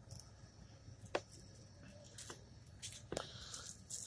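Quiet room tone with a few faint, short clicks or taps, about one a second.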